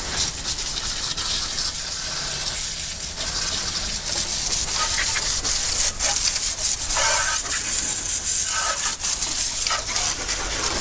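Steady hiss of liquid being sprayed onto an outboard motor to pre-clean it, with a few brief breaks in the spray.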